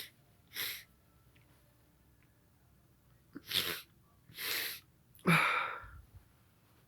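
A man sneezing repeatedly, set off by snorted chhinkni sneezing powder: several short, sharp breathy bursts, then the loudest and longest sneeze about five seconds in.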